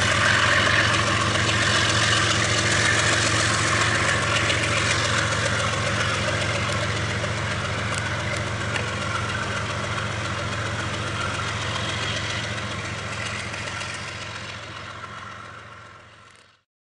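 Diesel-electric freight locomotives running with a steady low drone, under a steady rushing noise, as the train moves away. The sound fades over the last few seconds and cuts off suddenly just before the end.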